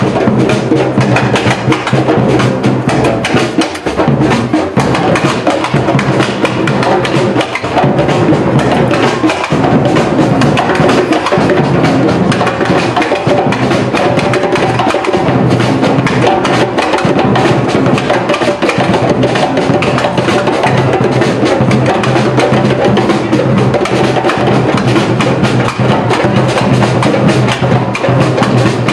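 Samba percussion band drumming a continuous, dense rhythm, with sharp wood-block-like clicks over the drums.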